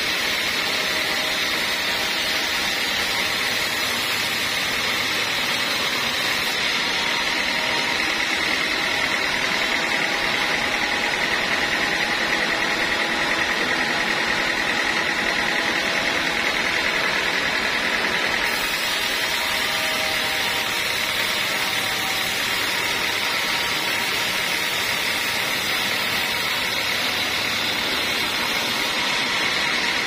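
Vertical band sawmill ripping dry teak timber lengthwise: a steady hiss of the blade cutting through the wood over the machine's running, with a steady high whine.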